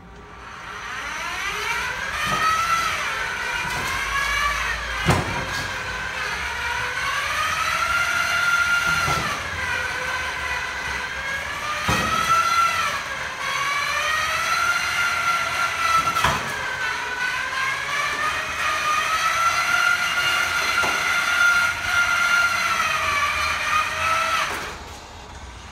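Electric drive motor of a Zonzini Domino tracked stair climber under a 160 kg load, running with a steady whine whose pitch sags and recovers every few seconds, with a sharp knock at several of the dips. The motor stops near the end.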